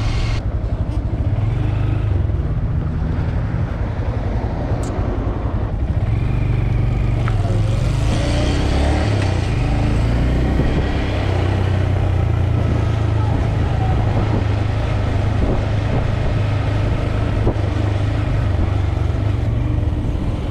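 Motorcycle engine running under way, heard from the rider's seat, as a continuous low hum whose pitch shifts a little as the throttle changes.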